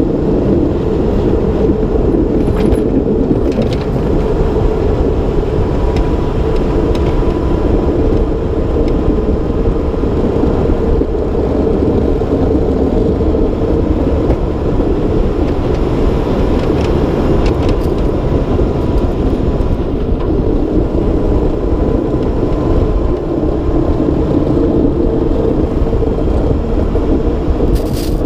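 Mack Granite plow truck's diesel engine running steadily while its front plow and wing push snow, a continuous loud rumble with a faint steady whine above it.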